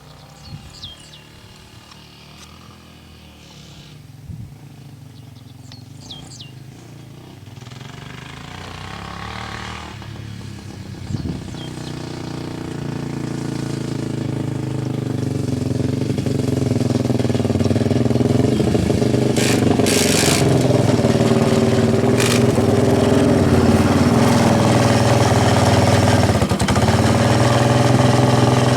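Yamaha Raptor 660 ATV's single-cylinder engine, faint at first, then growing steadily louder over about ten seconds as the quad comes closer, and running steadily close by for the last ten seconds or so.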